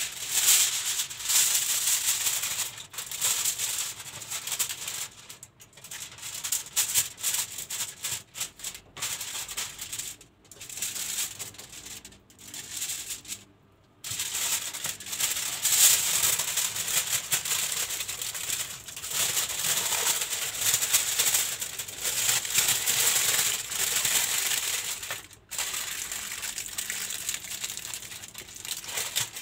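Aluminium foil crinkling and rustling as a sheet is spread out and then folded tightly into a parcel, in uneven bursts with a brief pause about halfway.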